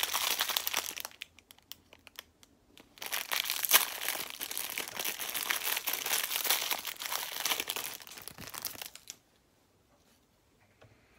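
Clear plastic wrapper crinkling as it is handled and pulled open by hand, with a short spell at first, scattered crackles, then continuous crinkling for about six seconds that stops a couple of seconds before the end.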